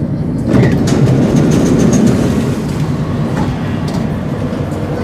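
Singapore MRT train standing at a station with its doors sliding open: a rise in rumble and clatter about half a second in, with a few clicks, over the carriage's steady low hum.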